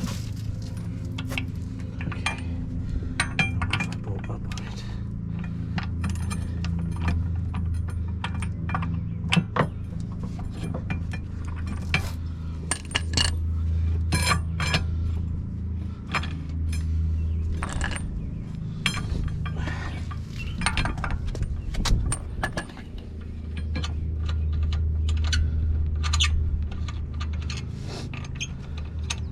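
Hand tools clinking and knocking on metal, with many irregular sharp clicks, over a steady low hum that swells and fades.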